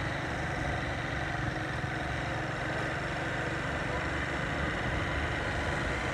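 Vehicle engine running steadily at low speed, with tyre and road noise from the dirt road.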